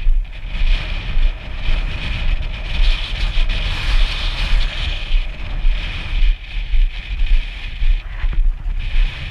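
Wind buffeting an action camera's microphone on an exposed trail: a heavy low rumble that swells and drops unevenly, with a hiss over it.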